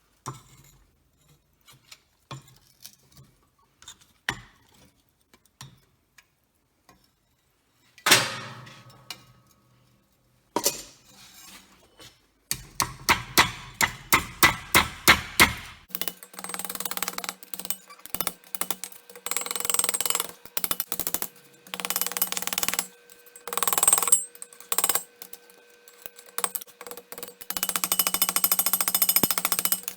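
Hammer blows on metal, forging: scattered knocks, one loud ringing strike, then a quick run of about three blows a second. This gives way to long stretches of harsh noise over a steady hum.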